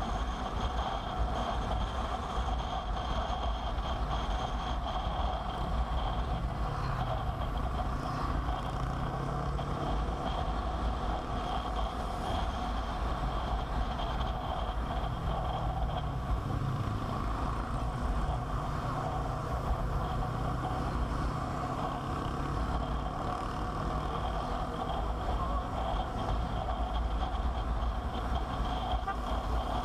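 Motorcycle running steadily on the road: a continuous engine hum under wind and road noise, with no breaks or sudden changes.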